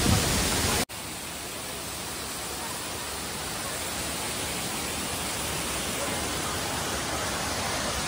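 Steady rushing water of a waterfall and its rocky stream, an even hiss, broken by a brief drop-out about a second in, after which the rush comes back slightly quieter and slowly builds.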